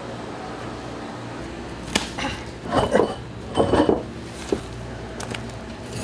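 A raw skate being handled and set down on a cutting board: a sharp knock about two seconds in, then two louder rustling, slapping bursts around the middle, and a couple of light clicks, over a faint steady background hum.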